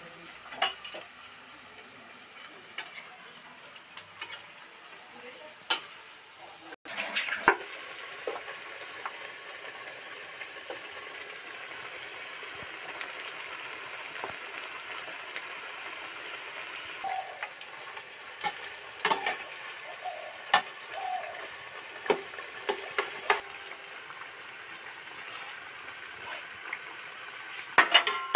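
Spinach pakoras deep-frying in plenty of hot oil: a steady sizzle of bubbling oil, with scattered sharp clicks. The sizzle turns louder suddenly about seven seconds in.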